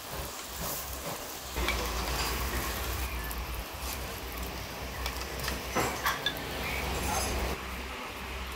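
Chopsticks and a ladle clinking against the metal dome grill and pot of a mookata, over the sizzle of pork grilling on the dome, with a few sharper clinks about six seconds in. A steady low hum runs underneath from about two seconds in.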